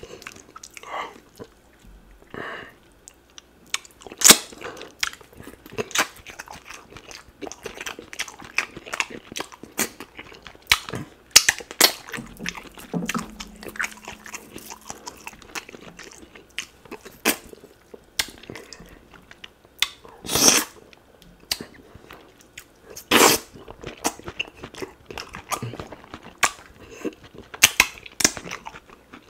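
Close-miked wet chewing and mouth sounds of a person eating duck meat and draw-textured ogbono soup with his fingers, with irregular sharp smacks, several of them louder, scattered throughout.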